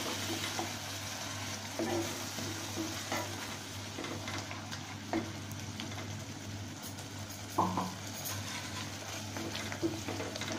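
Mustard-and-spice masala paste sizzling steadily in a non-stick frying pan as a plastic ladle stirs it, with soft taps and scrapes of the ladle against the pan every second or two.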